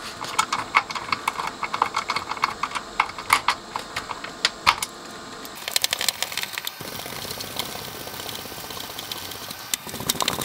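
Screwdriver driving screws back into an amplifier's metal chassis and circuit board: quick irregular clicking for about five seconds, then a steadier rasping with fainter clicks as the screws turn.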